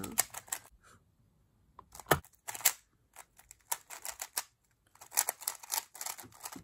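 Dayan Tengyun V2 M magnetic 3x3 speedcube being turned fast, a quick, uneven run of plastic clicks and clacks, with a short pause about a second in.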